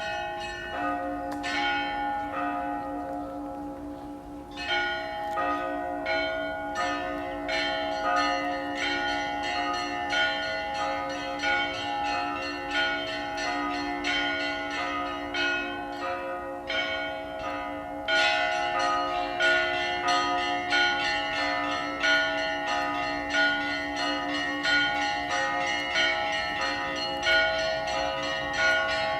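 Church bells ringing a festive Easter peal. Many bells of different pitches are struck in quick succession while the deepest bells ring on beneath them. The ringing is thinner for the first few seconds, grows fuller about four seconds in, and fuller again around eighteen seconds in.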